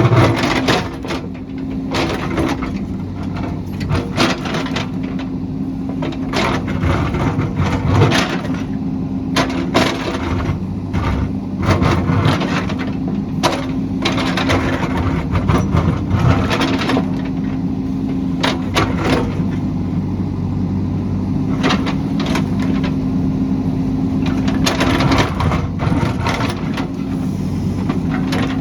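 JCB backhoe loader's diesel engine running steadily under load while the bucket digs into the hillside, with repeated sharp cracks and crunches of ground and brush being broken.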